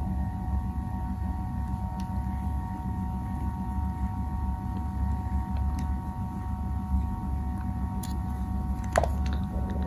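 Steady low hum and rumble of background noise, with a few faint clicks and taps from a baitcasting reel being handled.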